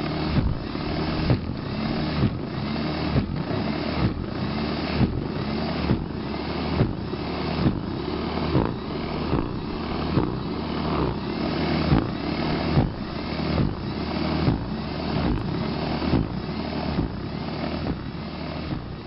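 Toro Power Shovel's electric motor running steadily as its rotor throws snow, with a regular surge about one and a half times a second as it is pushed into the snow.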